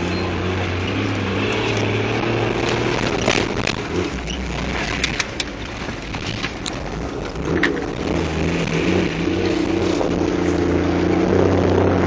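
Toyota 4x4's engine running, heard from inside the cabin while driving over a rough dirt track, its note shifting up and down with the throttle. Sharp knocks and rattles from the body over the bumps come mostly in the middle stretch.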